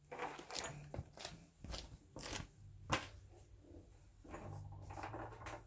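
Handling noise as objects are moved about by hand: a series of light clicks and knocks with some rustling, over a low steady hum.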